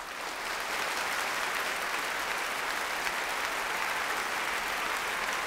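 Large crowd applauding, a dense, even clapping that holds steady throughout.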